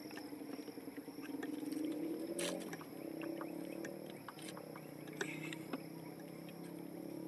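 A steady low hum made of several tones, with scattered small clicks and rustles of a nylon gill net being handled as fish are picked out of it.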